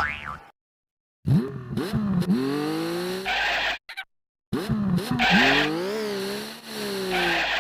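Cartoon car sound effect, heard twice: an engine revs up with a rising pitch and then glides slowly, and each pass ends in a short screech like tyres skidding.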